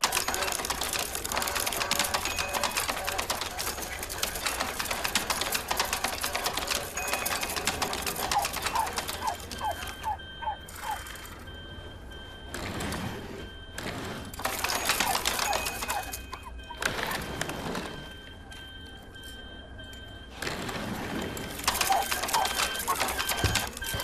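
Machine printing numbers onto a paper roll, clattering very fast and without a break for the first half. In the second half the clatter stops and starts in stretches, under two steady electronic tones and a few short chirping beeps.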